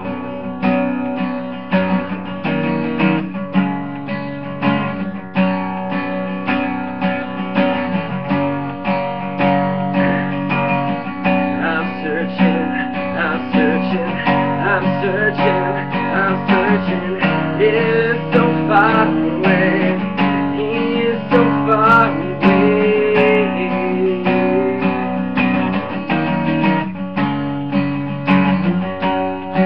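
Strummed acoustic guitar playing an instrumental passage of a song in a steady rhythm. A higher melody line wavers over the chords through the middle of the passage.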